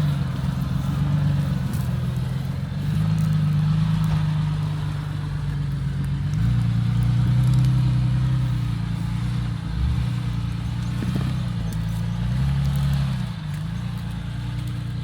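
Off-road vehicle's engine running at low revs, its pitch shifting up and down with the throttle as it drives over rough terrain, with occasional knocks and crackles.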